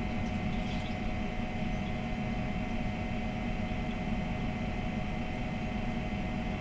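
Steady mechanical hum and hiss with a few faint held tones, unchanging throughout.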